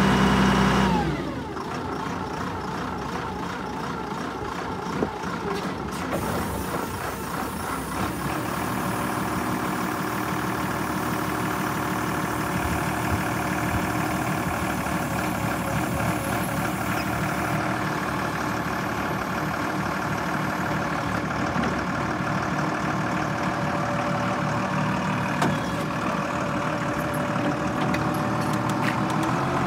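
Kalmar DC 10-600 forklift's diesel engine revving, its pitch falling as the revs drop about a second in, then running steadily at lower revs; the revs pick up again near the end.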